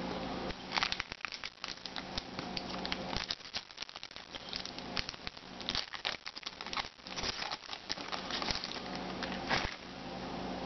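A foil trading-card pack wrapper being torn open and crinkled by hand: a long run of crisp crackles and rustles that stops shortly before the end.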